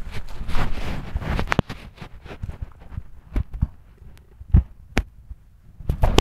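Footsteps scuffing over a dirt and debris-strewn floor, with rustling for the first second and a half or so, then scattered separate steps and knocks, the sharpest about four and a half seconds in.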